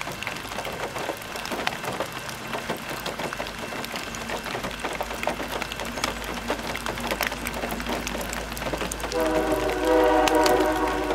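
Train rolling by with a steady rumble and scattered clicks of wheels on the rails. About nine seconds in, a locomotive air horn starts sounding and holds through the end.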